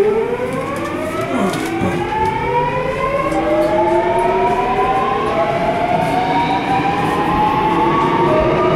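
Subway train's electric traction motors whining as it pulls away and gains speed, heard from inside the car: several tones rise steadily in pitch together over the rumble of the running train.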